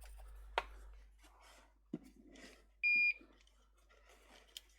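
One short electronic beep: a steady high tone lasting about a third of a second, a little past the middle. Small clicks and faint handling noise come before and after it.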